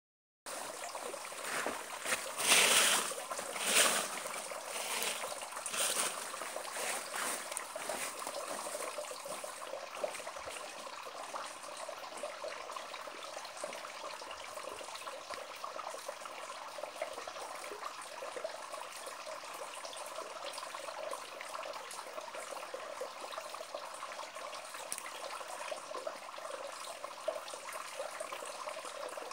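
Thin trickle of water falling from a rock ledge and splashing onto the rocks below, a steady light splashing. A few louder bursts of noise come in the first few seconds.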